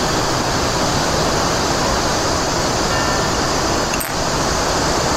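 Rushing water of a mountain stream: a loud, steady roar that dips briefly about four seconds in.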